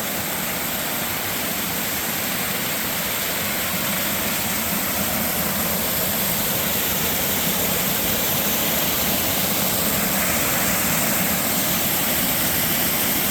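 Waterfall close by, a steady rush of falling water that grows gradually louder.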